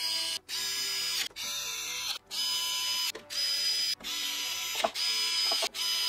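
Small electric screwdriver's motor whining in about seven short runs of just under a second each, with brief stops between, as it drives the radiator mounting screws into the PC case's top panel.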